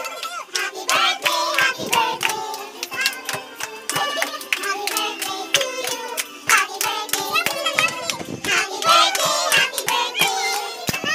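A group of voices, adults and children, singing a birthday song together while clapping their hands in time.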